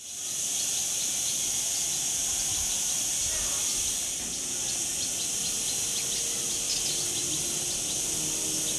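A steady, high-pitched insect chorus with short bird chirps scattered through it.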